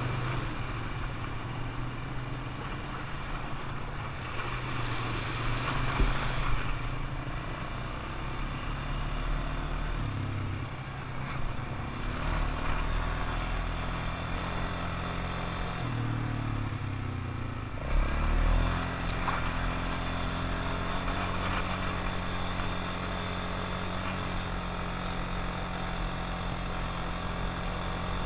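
ATV engine running while riding, its pitch rising and falling with the throttle. The engine drops and picks up again about two-thirds of the way in. A short burst of hiss comes about five seconds in.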